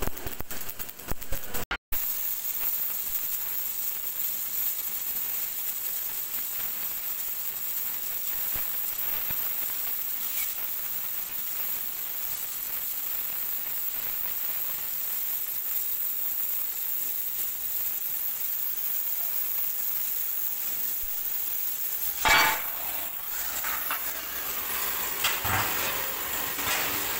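Electric arc welding crackling on a steel mixer-drum ring for about two seconds. After a cut comes a long steady sizzling hiss of hot work on steel sheet, throwing sparks. Near the end there are a few loud metal clangs as a steel drum section is handled.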